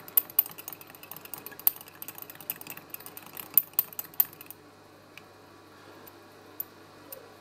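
Metal stirring stick clinking against the inside of a small glass jar, mixing nail polish with thinner in quick, irregular clicks. The stirring stops about four and a half seconds in, leaving only a few faint ticks.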